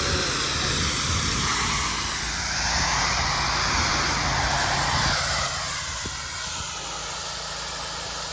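Pressure washer running with a steady engine hum under a broad hiss of water spray; the hiss swells about a third of the way in and eases off past the middle.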